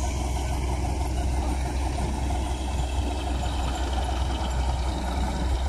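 Combine harvester's diesel engine running steadily with a deep, even hum, its unloading auger pouring grain.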